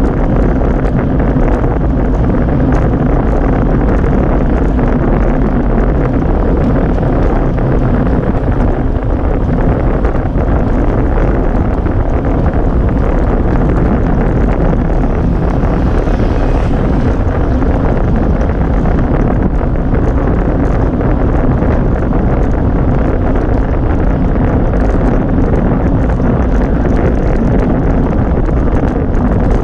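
Wind buffeting the microphone of a camera mounted on a road bike at race speed: a loud, steady roar of noise, with the hiss of tyres on asphalt under it.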